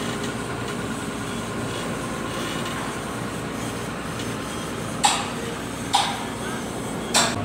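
Crawler crane's engine running with a steady drone, with three sharp knocks about a second apart near the end.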